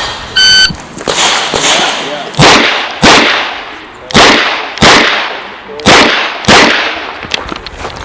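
Shot timer beeps once about half a second in. Then a .38 Special Chiappa Rhino revolver fires six shots in three quick pairs, each pair about two-thirds of a second apart. Two fainter cracks come just before the first pair.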